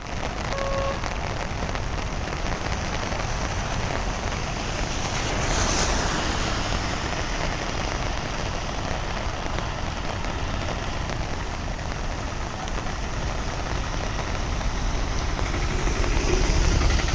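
Steady, even roar of heavy rain and rushing floodwater. A short beep sounds just under a second in.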